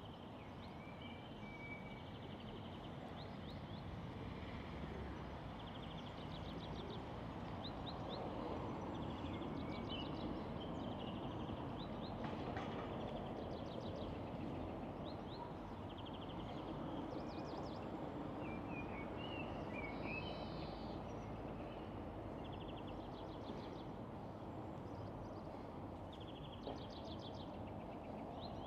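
Small birds chirping and giving short, quick trills again and again, over a steady low background din of city noise.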